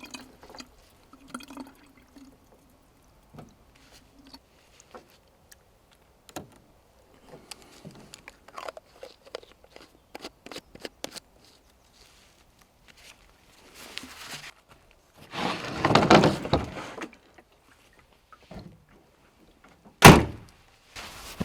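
Water being fetched from a container: scattered small clicks and knocks of handling, then water pouring for about two seconds, and one sharp loud thunk near the end.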